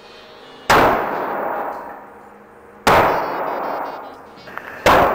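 Three pistol shots, about two seconds apart, each sharp crack followed by a long echoing decay off the walls of an indoor range.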